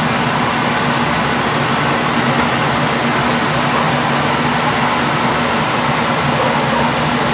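Steady whooshing noise with a low, even hum underneath, unchanging throughout, as of a running fan or burner in a kitchen.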